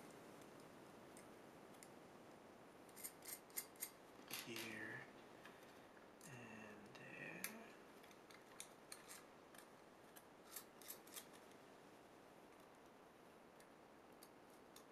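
Mostly near silence, broken by faint scattered clicks and taps of small screws and standoffs being handled and fitted to a keyboard plate and circuit board. A couple of brief murmurs come from the person working, about a third and halfway through.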